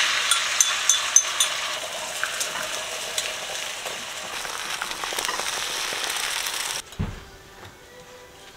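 Beaten eggs sizzling in a hot frying pan as they are stirred with a spatula, with a few light clinks in the first second or so. The sizzling cuts off suddenly near the end, followed by a single dull thump.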